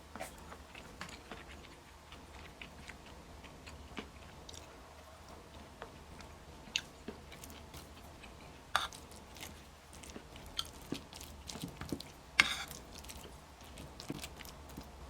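A person eating: quiet chewing with scattered sharp clicks, the loudest about twelve seconds in.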